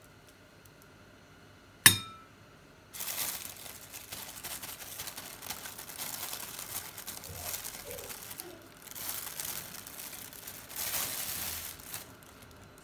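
One sharp clink of a metal spoon on a glass bowl about two seconds in, ringing briefly; then a plastic bag crinkling and rustling for most of the rest as corn flour is scooped out of it, with two short pauses.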